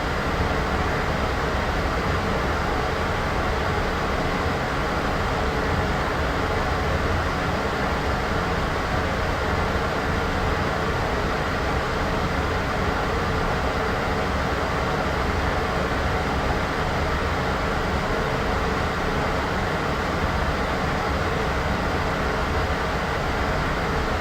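Steady, unchanging white-noise bed with most of its weight in the low end, a deep rumbling hiss with no separate sounds in it.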